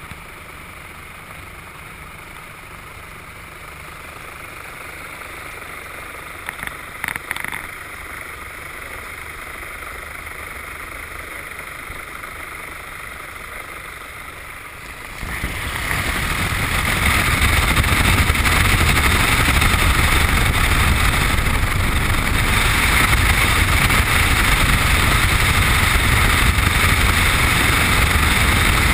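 Piper Cub's engine running steadily at low power, then opened up about halfway through to full throttle and holding loud and steady, as for a take-off run.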